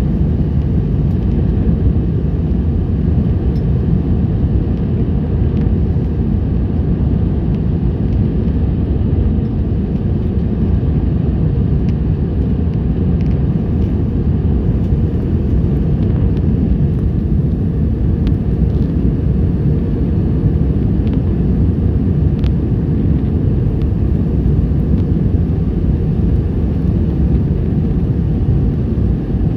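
Airbus A320 cabin noise: a steady low rumble of engines and airflow, unchanging throughout.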